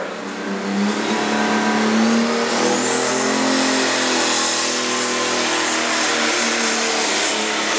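John Deere light pro stock pulling tractor's turbocharged diesel engine run up to full power as it starts pulling the sled. A high whine rises about three seconds in as the turbo spools up, and the engine then runs hard and steady.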